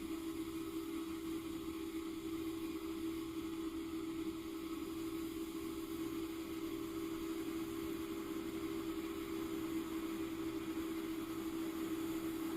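A steady, constant-pitch mechanical hum, unchanging throughout.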